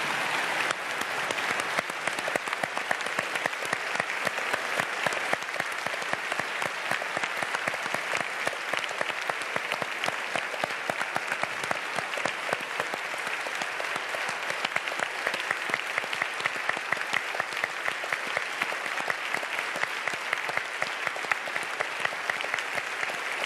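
A large studio audience applauding, sustained and steady.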